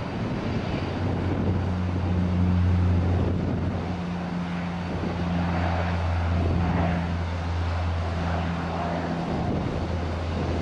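Airliner engines running with a steady, unchanging low drone under a broad rushing noise that swells and fades.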